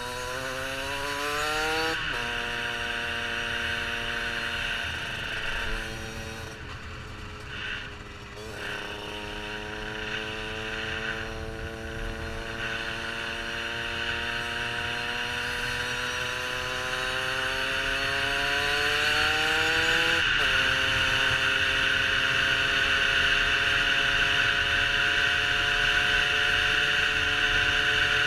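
Derbi Senda 50's two-stroke single-cylinder engine under way, its note climbing as it revs and dropping sharply three times at gear changes, then holding a steady high note near the end, with wind rushing past.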